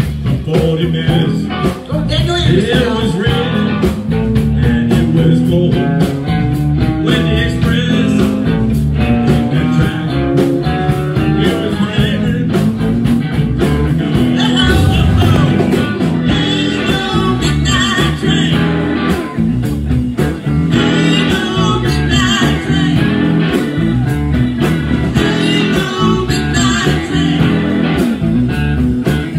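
Live blues band playing: electric guitars, bass, drum kit and keyboard, with a steady drum beat.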